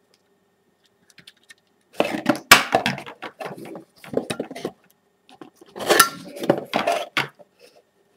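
A multimeter's circuit board and plastic case being handled and turned over by hand: clusters of light clicks and knocks, starting about two seconds in, again around four seconds, and a longer run near the end.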